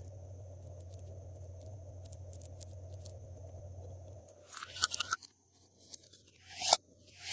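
Glossy slime being worked by hand: after a few seconds of low steady hum with faint ticks, a few short sticky crackles and pops come near the end, the loudest in the last second.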